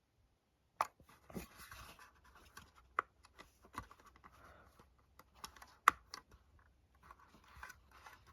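Quiet handling noise: paper rustling with scattered sharp clicks and knocks from handling a plastic battery smoke alarm and its manual, the loudest knock about six seconds in.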